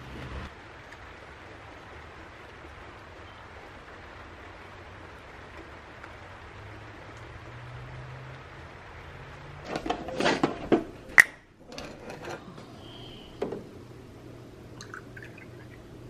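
Steady light rain falling, an even hiss, for the first nine seconds or so. Then a few short louder sounds and a sharp click about eleven seconds in, and milk being poured into a small mug near the end.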